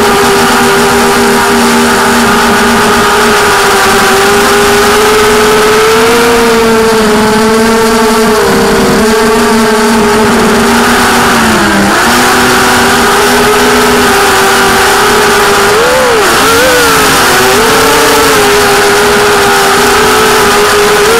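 ZMR250 quadcopter's four brushless motors and propellers whining, loud and close. The pitch stays mostly steady, dips briefly a little past halfway and swings up and down a few times about three quarters through as the throttle changes.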